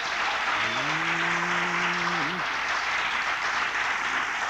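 Audience applauding at the end of a recited couplet. About a second in, one man's voice rises and is held on a long drawn-out note for about a second and a half.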